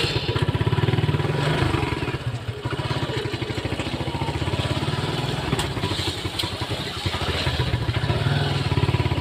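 Motorcycle engine running at low revs while riding slowly, a rapid even run of firing pulses with small rises and dips in throttle.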